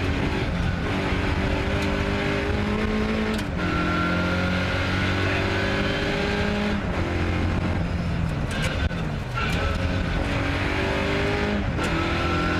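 Ford Escort Mk2 rally car's 2.0-litre Pinto four-cylinder engine revving hard under load, heard from inside the cabin. Its pitch climbs and drops sharply at each gear change, about four times.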